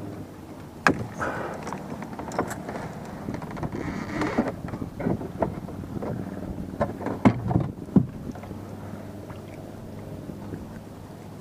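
Irregular clicks, knocks and rustling as a caught fish is clipped onto a homemade tennis-ball stringer with metal shower clips in a kayak. The sharpest knocks come about a second in and again around seven to eight seconds in.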